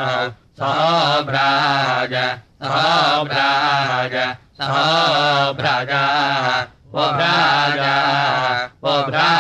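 A single voice chanting Samaveda gana of the Kauthuma recension: long, melodic, wavering phrases held on the vowels, broken by short pauses about every two seconds.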